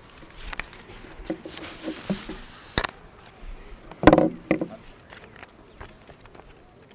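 Podium microphone picking up scattered knocks and rustles, with a short voice sound about four seconds in.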